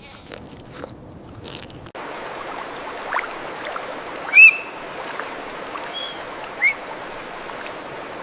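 Faint ticks and clicks, then, about two seconds in, a steady rush of running water begins abruptly. A few short bird chirps sound over it, the loudest about halfway through.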